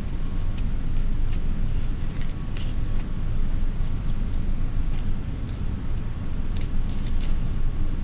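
Steady low background rumble, with faint soft ticks and rustles scattered through it as torn paper scraps are handled and pressed onto a glued collage.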